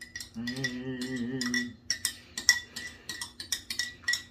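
Metal spoon stirring coffee in a ceramic mug, clinking against its sides many times in quick succession, with a ringing tone. A voice hums for about a second near the start.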